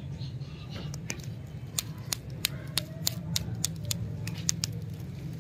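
Handling of candy stick lollipops: a run of irregular sharp clicks and taps, thickest in the middle, over a steady low hum.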